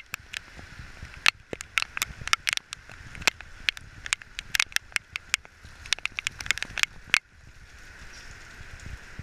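Pouring rain: a steady hiss of rainfall with many sharp, loud drop impacts striking close by. About seven seconds in the close impacts stop suddenly and only the steadier rain hiss goes on.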